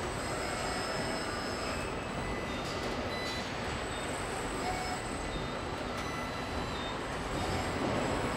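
Car body-shop machinery: a steady hum and air noise, with short high whines and squeals at several pitches from the servo drives of industrial robot arms as they move, and a few faint clicks.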